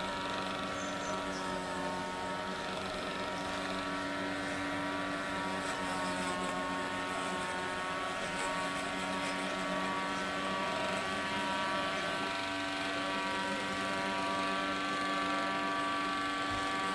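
A steady motor drone with several held tones that waver slightly in pitch.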